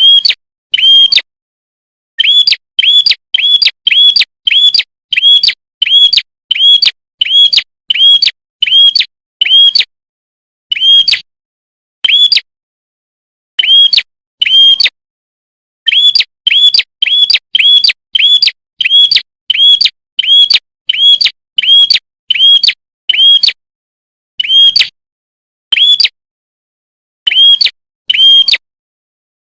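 A prenjak songbird (prinia) giving a fast run of short, sharp, high chip notes, about two a second, with brief pauses between runs.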